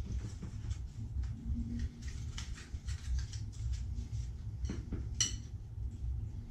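Light off-camera handling noises: scattered small clicks, taps and rustles of tools being moved, with one sharper click about five seconds in, over a low steady hum.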